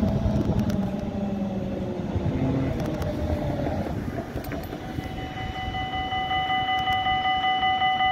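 GVB tram's electric traction motors whining and falling in pitch as it brakes into the stop. From about five seconds in, a steady high tone starts and pulses regularly while the tram stands at the platform.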